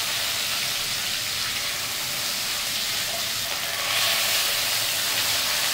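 Pieces of spleen, freshly washed and still wet, sizzling steadily in hot sesame oil in a nonstick pan; the sizzle swells about four seconds in.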